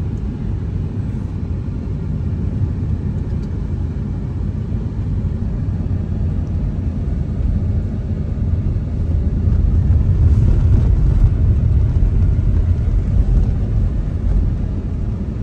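Car driving, heard from inside the cabin: a steady low rumble of engine and road noise that grows louder about ten seconds in.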